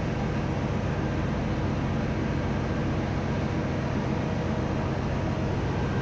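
Steady drone of a ship's engine-room machinery: an even noise with several steady low hums under it, unchanging throughout.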